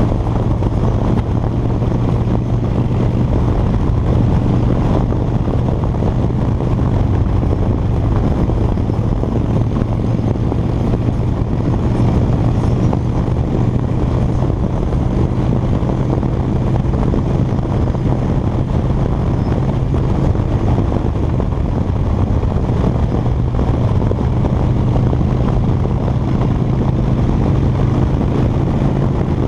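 Harley-Davidson Dyna Fat Bob's V-twin engine running steadily at highway cruising speed, with wind rushing over the microphone.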